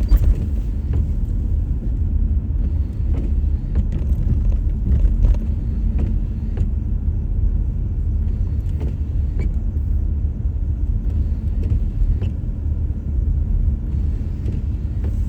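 Car driving on a snowy, icy road: a steady low rumble of engine and tyres, with faint scattered ticks.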